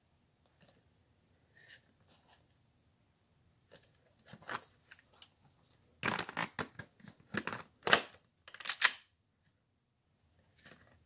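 Plastic clicking and rattling of a brick-built Lego toy gun being handled and worked: a few faint clicks, then a busy run of sharp clatters from about four to nine seconds in, the loudest near the end of that run.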